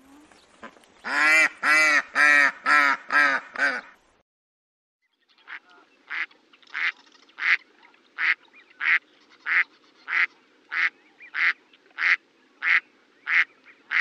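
Ducks quacking: a rapid run of about eight loud quacks, then, after a brief silence, a steady series of shorter calls, about three every two seconds.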